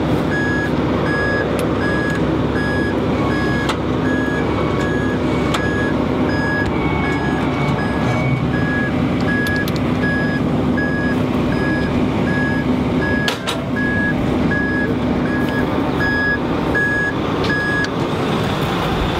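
Fire truck's backup alarm beeping about once a second as the truck reverses, over its engine running steadily; the beeping stops near the end.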